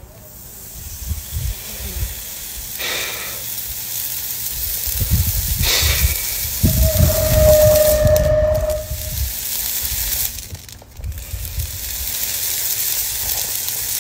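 Hot steel horseshoe pressed against a horse's hoof in hot shoeing, the hoof horn hissing and sizzling as it burns. A short whistle-like tone sounds through the middle, and the hiss breaks off briefly near the end before starting again.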